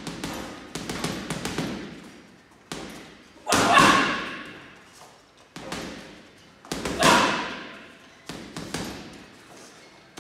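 Gloved punches landing on a hanging heavy punching bag in quick bursts of combinations, each burst a run of sharp thuds; the hardest hits come a little after three seconds and at about seven seconds.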